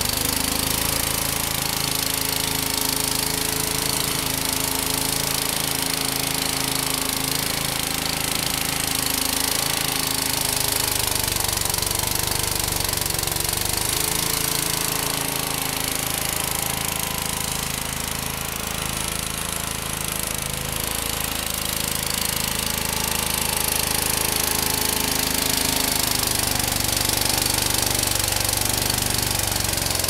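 1969 Sears Suburban Hydrotrac 12 garden tractor engine running steadily under load, driving its front snowthrower through wet, heavy snow, with a John Deere GT235 garden tractor and snowthrower running alongside. The engine note dips slightly in loudness partway through.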